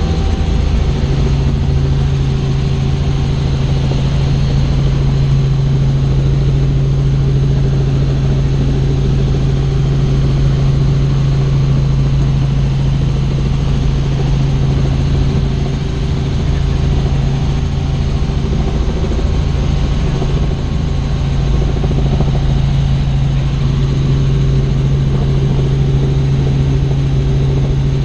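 Helicopter running steadily in flight, a constant loud low drone of engine and rotors.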